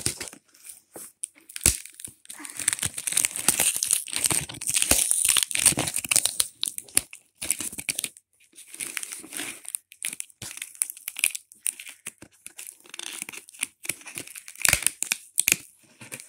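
Packing tape being peeled and ripped off a cardboard shipping box by hand, with the cardboard and label tearing: irregular crackling rips and crinkles, coming in spurts with short pauses.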